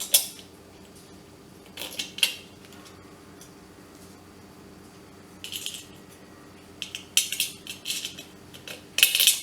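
Small metal parts clinking and scraping in short bursts, about five times, as a bolt and nuts are handled and fitted onto a travel kettle's heater plate.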